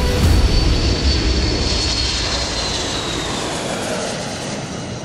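Four-engine jet aircraft taking off at full power, its engine noise heavy with low rumble. A high whine drops in pitch from about two seconds in as it climbs past overhead, and the sound slowly fades.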